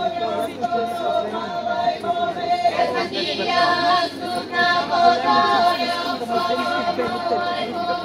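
Women's and girls' folk choir singing a cappella in the archaic Bulgarian Shope diaphonic style: a steadily held drone note under a moving lead melody.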